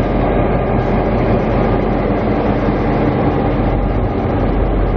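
The Spirit of the Outback passenger train, led by locomotive 2414, pulling into the platform: a steady, loud rumble of the locomotive and rolling train.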